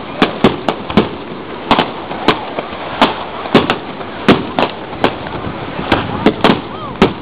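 Fireworks display: a rapid, irregular string of sharp bangs, about two a second, as rockets and aerial shells burst.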